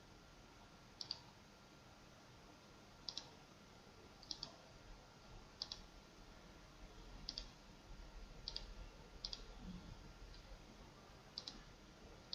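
Faint computer mouse clicks, each a quick double tick of button press and release, about nine of them spaced roughly a second apart.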